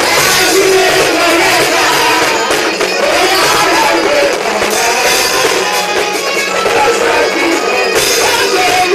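Loud live gospel music: a woman singing into a microphone over instrumental accompaniment.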